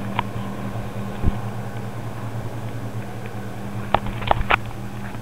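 A vehicle engine idling with a steady low hum. A short dull thump comes about a second in, and a quick cluster of sharp clicks and knocks near four seconds as someone gets into the vehicle.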